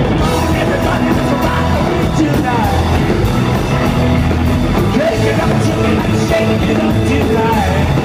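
Live rock and roll band playing: electric guitars, bass guitar and drum kit, with no sung lyrics.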